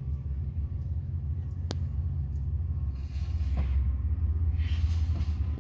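Low, steady rumble of an approaching BNSF freight train heard from a distance, with a single click about two seconds in.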